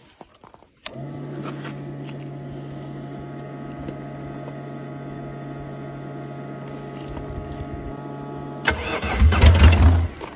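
Arctic Cat diesel ATV engine with a straight-piped exhaust, cold-started. After a click, a steady hum runs for several seconds; about nine seconds in, the engine cranks and fires, running loud and uneven.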